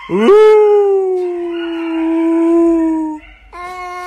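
Tabby cat yowling: one long, loud howl that swoops up at the start, then holds and slowly sinks for about three seconds. After a brief break a second long, steady yowl begins near the end.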